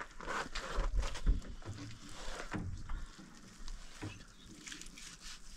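Knife cutting and hands handling raw sheep meat on a cloth sheet: small irregular clicks, rustles and dull knocks, loudest about a second in.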